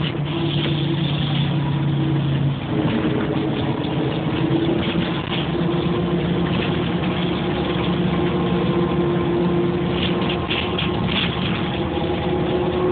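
Bus interior while riding: the engine's steady drone with road noise, the engine note shifting about two and a half seconds in, and a few brief rattles near the end.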